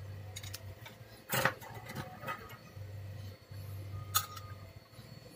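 Small tools being handled on a workbench: light clicks and taps, with two louder sharp clicks about three seconds apart, over a low hum that comes and goes.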